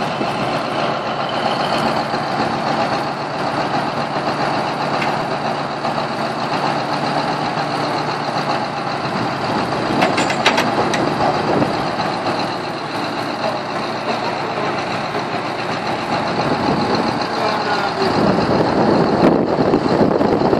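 Heavy diesel engine of a Cat 992 wheel loader running steadily as it tows a chained 50-ton Grove crane. The engine noise swells louder and deeper about eighteen seconds in.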